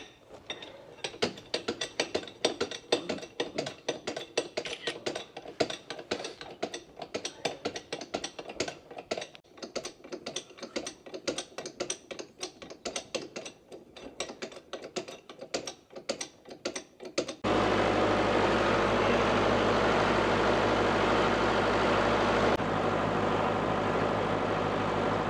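A ratchet spanner clicking rapidly and unevenly as a nut is worked for about seventeen seconds. It then cuts abruptly to the International 785 tractor's engine running steadily.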